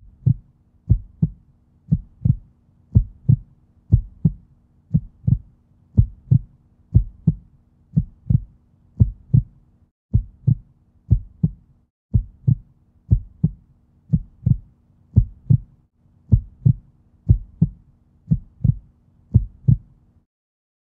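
Heartbeat sound effect: low double thumps, lub-dub, about once a second over a faint steady hum. It stops shortly before the end.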